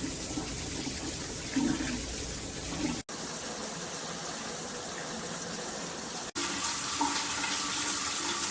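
Water spraying steadily from a shower head, heard as three short clips joined by abrupt cuts; the last is louder.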